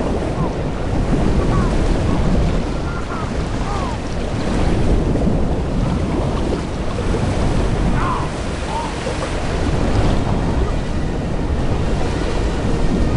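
Loud, steady rushing of a huge mass of churning water, a film sound effect, with a few short faint cries above it about three and eight seconds in.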